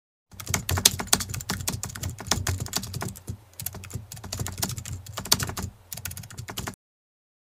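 Keyboard typing sound: a fast, dense run of key clicks with two brief breaks, cutting off abruptly near the end.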